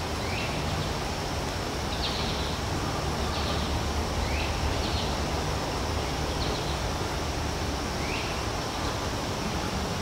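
Outdoor nature ambience: a steady even hiss with a low hum beneath it. Birds give short calls scattered through it: a few quick rising chirps and several brief single notes.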